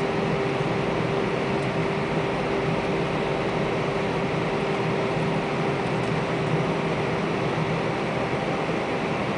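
Steady cabin noise of an Airbus A320: an even rush of jet engines and airflow with a constant droning tone underneath, holding level without spooling up or down.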